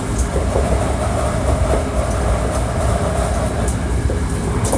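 Hankyu 1300 series electric train heard from inside the car while running: a steady rumble of wheels on rail with a few sharp ticks.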